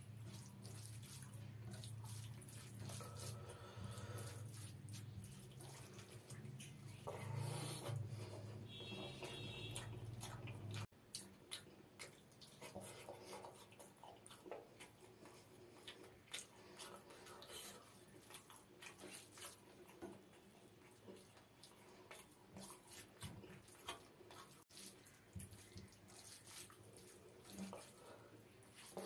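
Close-miked eating sounds: wet squishing of rice and mustard curry being mixed and squeezed by hand, with chewing and lip smacks as a series of small clicks. A low steady hum runs under the first ten seconds or so and cuts off abruptly.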